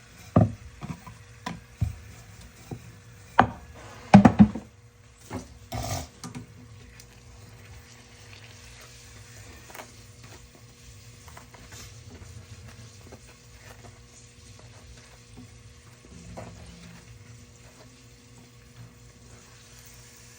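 Several sharp knocks and clatters of kitchen utensils in the first six seconds, the loudest about four seconds in. After that, a faint steady sizzle of bake dough frying in hot oil, with small ticks.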